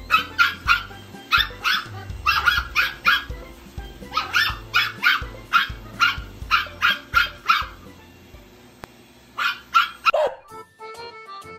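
Red toy poodle barking at a vacuum cleaner in use: runs of short, high-pitched yaps, about three a second, with brief pauses between runs and a last few near the end.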